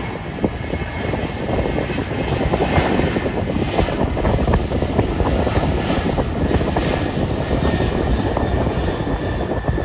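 Jet airliner engines running: a steady rumble with a thin, high whine, growing a little louder about two seconds in.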